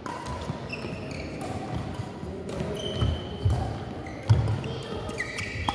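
Badminton rally: racket strikes on the shuttlecock, short high squeaks of court shoes, and thudding footfalls on the court, with a few heavier thuds in the second half.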